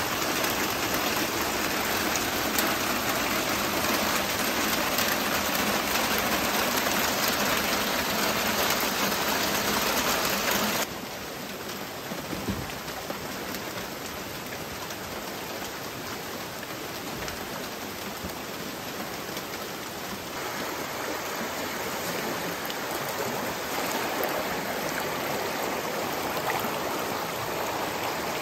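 A steady hiss of heavy rain cuts off suddenly about eleven seconds in. After that, a fast, flood-swollen muddy stream rushes over rocks, growing a little louder near the end.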